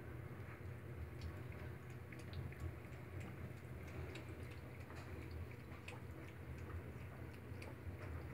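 Cat lapping from a small paper Dixie cup: soft, irregular wet clicks of the tongue, about three or four a second, over a steady low hum.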